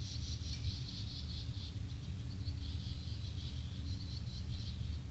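Nestling birds begging: a rapid, high-pitched chattering that pauses briefly about two seconds in and starts again, over a low rumble.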